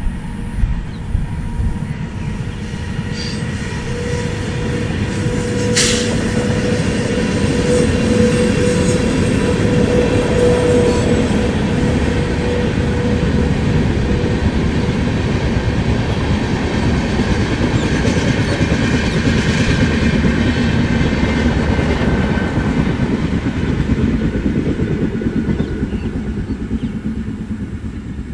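Passenger express hauled by a WAP-7 electric locomotive running past at speed: a dense rumble of coaches with wheels clattering over the rails, swelling to its loudest through the middle and fading near the end. A steady whine sounds in the first half, and a single sharp click about six seconds in.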